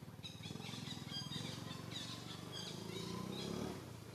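Baby monkey giving a run of short, high-pitched squeaks and chirps over a low rumble.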